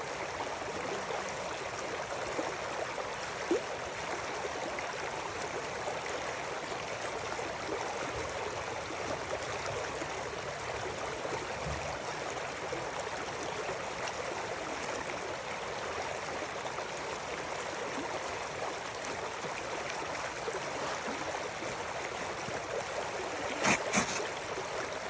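River water flowing and gurgling in a steady rush. Two sharp clicks sound close together near the end.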